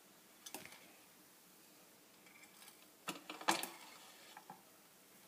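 Metal clicks and knocks as a brass Eureka electric clock movement is gripped and turned by hand: a faint click about half a second in, then a louder cluster of knocks about three seconds in.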